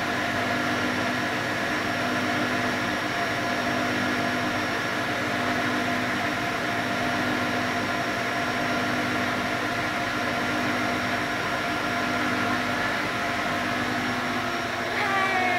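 Steady mechanical hum, with several held tones, running evenly without change.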